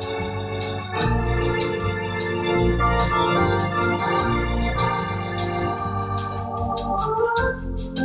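Two-manual home electronic organ playing a bossa nova tune: sustained chords with a melody over them. Deep pedal bass notes come in about a second in and pulse on and off, with light ticking in the high range above.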